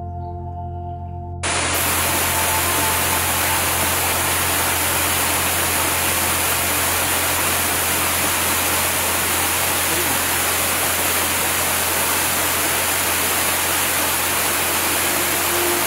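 Soft ambient music of held tones cuts off suddenly about a second and a half in and gives way to a steady, even rushing noise with a low hum underneath, which lasts the rest of the time.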